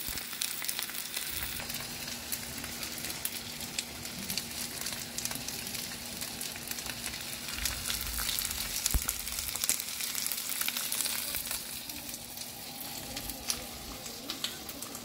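Potstickers frying in oil in a nonstick skillet: a steady sizzle with frequent small pops and crackles, over a faint steady low hum.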